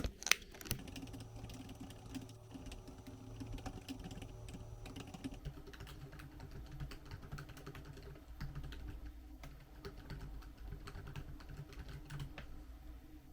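Typing on a computer keyboard: a steady run of quick, light key clicks, after two sharper clicks at the very start.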